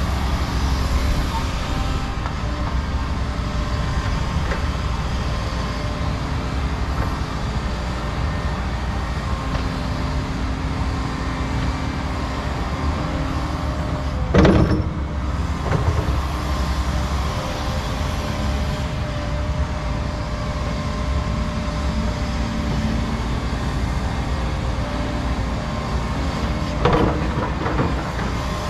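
Excavator diesel engines running, a steady drone, with a sharp knock about halfway through and a smaller one near the end.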